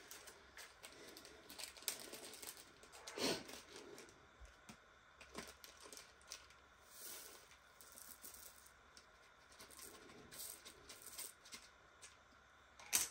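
Faint crinkling of small plastic bags of diamond painting drills being handled, with the drills rattling inside and scattered light clicks and taps, a louder rustle about three seconds in and near the end.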